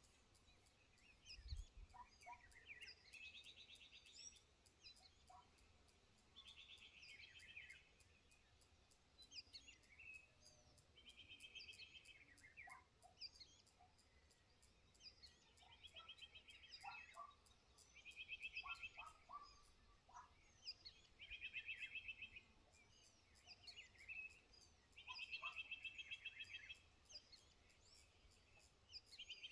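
Faint wild birds calling: a rapid trilled call about a second long repeats every few seconds, with scattered short chirps between, over a faint even high-pitched ticking.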